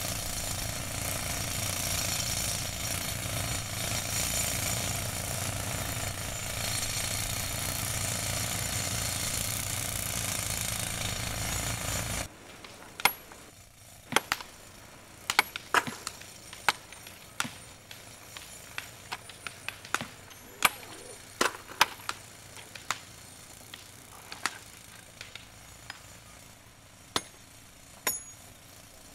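Pneumatic rock drills running steadily, boring into rock, until they stop abruptly about twelve seconds in. Then hammers strike and split stone by hand in sharp, irregular cracks, about one or two a second.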